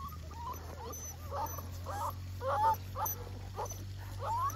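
North American Mastiff puppies, six weeks old, whining and whimpering: a string of short, high, bending squeals, several in quick succession.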